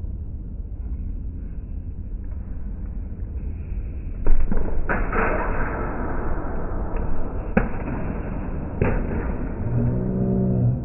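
Slowed-down sound of a steel-sabre fencing exchange: a low rumble with several deep, drawn-out knocks and clanks as the blades meet, the loudest about four seconds in. Near the end comes a long, deep-pitched slowed-down shout.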